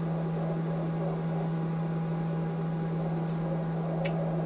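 Steady low hum with an even hiss, and a faint click or two near the end.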